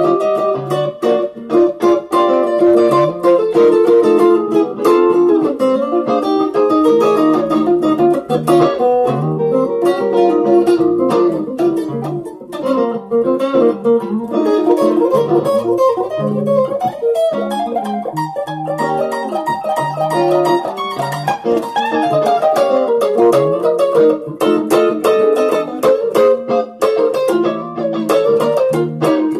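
Electric guitar, a Stratocaster-style instrument played through a Zoom G1on multi-effects pedal, playing a continuous blues in B flat with single notes and chord fills over a repeating lower line.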